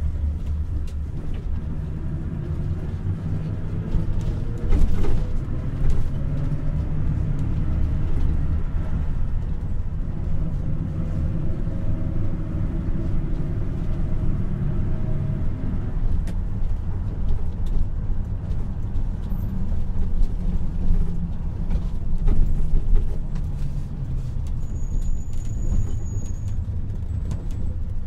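Inside a moving taxi: steady low rumble of engine and tyres on the road, with the engine note slowly rising for a while as the car picks up speed. A short thump about five seconds in.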